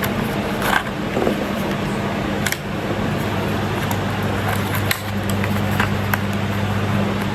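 Steady drone of a car cabin on the move, engine and road noise with a low hum, with a few light clicks and the pitch of the hum shifting slightly about five seconds in.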